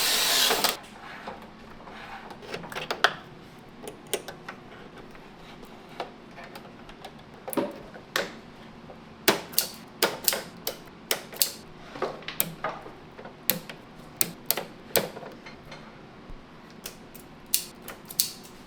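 A power drill whirs and stops less than a second in. Then comes a long string of irregular sharp clicks and clacks, some in quick clusters, from hardware and parts being handled while an inverter is mounted.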